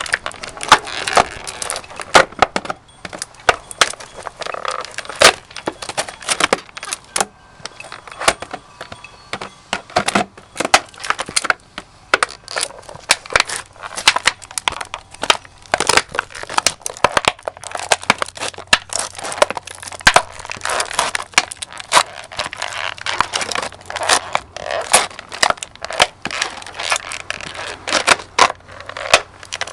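Chippewa firefighter boots stomping on and crushing an empty snack jar: a long run of sharp, irregular cracks and crunches, several a second.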